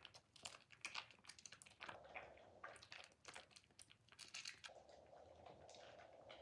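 Soaked, softened white bar soap squeezed and crushed in lathered hands: wet squishing and crackling of soap mush and foam in quick, irregular squelches. About three-quarters of the way through it settles into a steadier soft fizz of lather.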